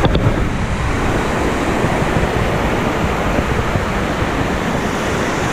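Steady, loud rush of a waterfall, with heavy low rumble.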